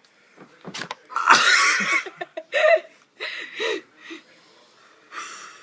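Breathy nonverbal vocal sounds from a person trying to sneeze: a loud rush of breath about a second in, then short bursts of laughter and a fainter breath near the end.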